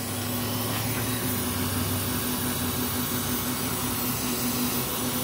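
Steady running hum of a pickup truck's engine bay with the hood open: a constant low tone over an even whir, with a lower hum that fades about two seconds in.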